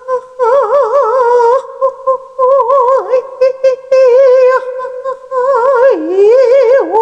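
A woman vocalising wordlessly on a held note with a quick, wide vibrato. The pitch dips lower and comes back briefly about three seconds in and again near the end. It is a light, half-voice (轻声) singing exercise.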